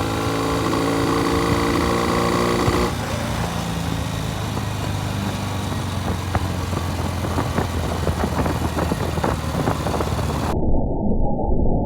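Norton motorcycle's parallel-twin engine running, with an even tone for about the first three seconds, then a rougher note with irregular sharp crackles.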